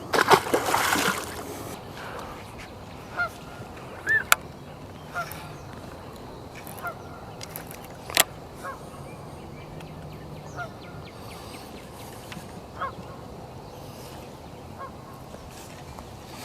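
Short bird calls repeating every second or two. A loud rustling noise fills the first second or so, and two sharp clicks stand out near the 4 and 8 second marks.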